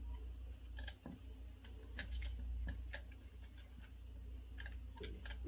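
Kittens' claws and paws clicking and tapping on a hard floor as they play, as irregular light ticks several times a second, over a steady low hum.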